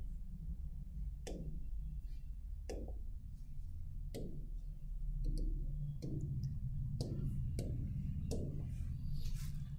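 Hard taps on a touchscreen board's glass, about ten sharp clicks at uneven spacing, roughly one a second, as a page number is keyed in on the on-screen keypad. A steady low hum runs underneath.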